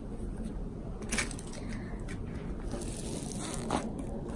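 Soft white modelling clay being broken and pressed by hand onto a mound of clay, giving a few faint, short crackling and tearing sounds.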